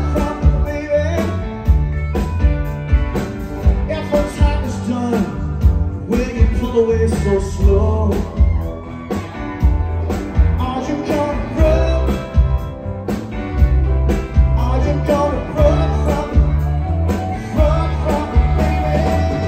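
Live rock-and-roll band playing: upright piano, electric bass, drums and electric guitar, with a steady beat.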